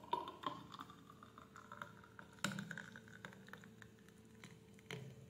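Thick milkshake poured from a blender jar into a glass tumbler: faint pouring and splashing with a few light knocks, and a faint note that climbs in pitch a second or two in.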